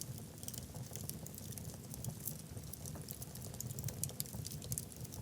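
Wood fire burning in a fireplace: logs crackling with many small, irregular pops over a low, steady rumble of the flames, a few sharper pops standing out about four seconds in.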